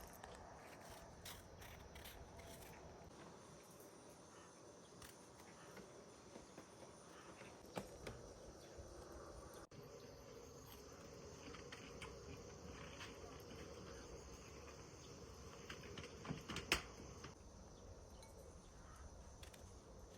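Faint outdoor ambience of insects buzzing steadily, with a few light clicks and knocks; one sharper click about three-quarters of the way through.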